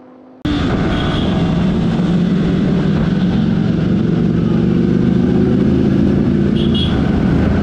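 Sport motorcycle engine running steadily at low road speed, heard from the rider's seat among a group of motorbikes. It starts suddenly about half a second in.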